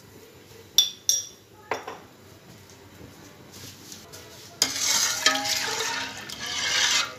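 A few sharp clinks against a metal pot. Then, from about four and a half seconds in, a metal spoon stirs turmeric water in the pot, scraping and swishing for a couple of seconds with some squeaky tones.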